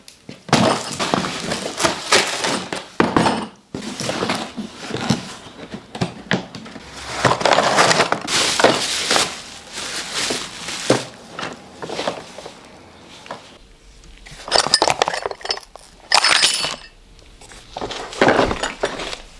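Irregular clinking, knocking and rustling of hard objects being handled, as a new hammer drill and its accessories are unpacked and set up; no steady drill running.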